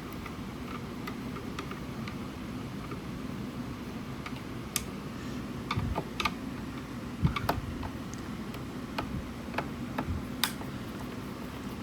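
Scattered small clicks and taps of a screwdriver and loose screws against the plastic casing of a speaker being unscrewed, irregular and more frequent in the second half, over a steady low hum.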